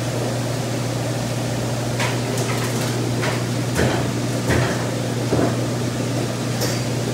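Steady low hum of store machinery, such as the seafood tanks' pumps and aerators or refrigeration. From about two seconds in come several short, sharp clicks and knocks.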